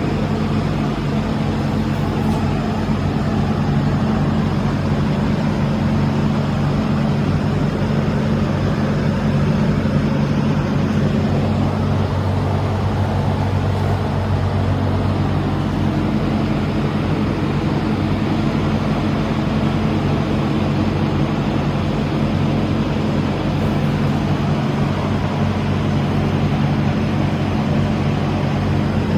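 Large manual lathe running, turning a 62-inch plate for facing and boring: a steady low machine hum with several held low tones under an even rushing noise.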